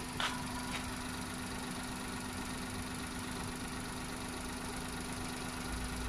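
Hyundai Eon's 800 cc three-cylinder petrol engine idling steadily with the bonnet open, a short click just after the start.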